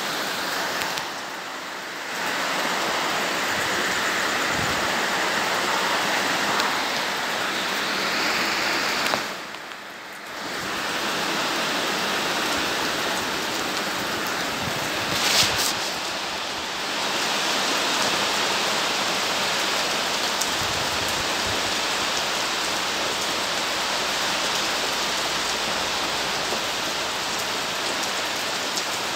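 Steady rain falling, an even hiss of many drops. It dips briefly about ten seconds in, and one short, louder sound stands out about halfway through.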